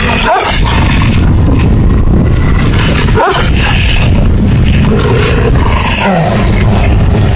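Loud, continuous growling and snarling from wolves and a Tibetan mastiff feeding together on a carcass, with two short rising yelps.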